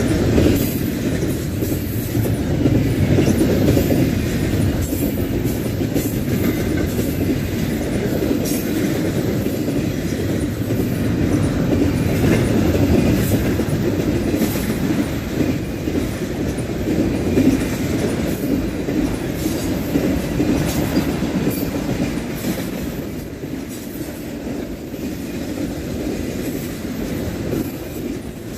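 BNSF freight train cars rolling past, their wheels clacking over the rail joints above a steady low rumble. The sound eases a little over the last few seconds.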